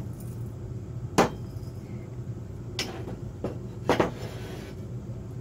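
Three sharp knocks as the aluminium square-tubing frame is handled on the workbench, spaced about a second apart, over a steady low hum.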